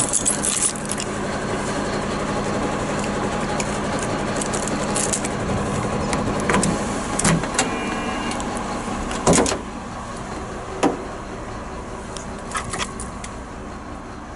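Key turned in a truck cab's door lock, then the latch releases and the door is pulled open, with a loud clunk about nine seconds in and another about a second later. Scattered clicks and handling knocks sit over a steady low hum that fades about six seconds in.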